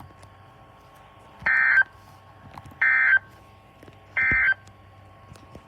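Emergency Alert System end-of-message signal: three short bursts of SAME digital data tones, about a second apart, marking the end of the alert.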